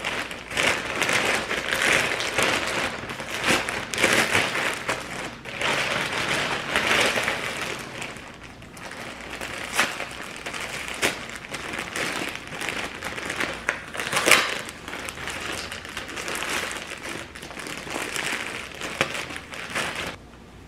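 Plastic mailer bag and the plastic wrapping of towel packs crinkling and rustling as hands open and handle them, uneven throughout, with sharper crackles now and then and the loudest one about two-thirds of the way through.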